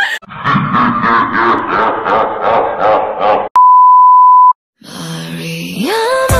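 Music with a regular beat breaks off about three and a half seconds in. A loud, steady, single-pitch beep follows for about a second: the TV test tone of a 'please stand by' interruption card. After a brief silence, a rising swoop leads back into music.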